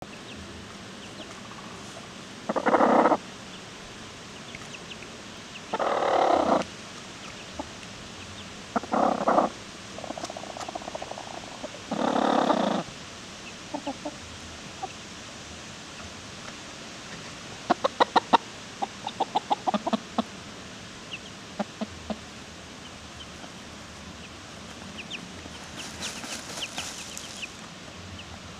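Hens dust bathing in loose dirt: four short scratchy bursts of flicked dust in the first half, then a quick run of short clucks, with faint high chick peeps scattered throughout.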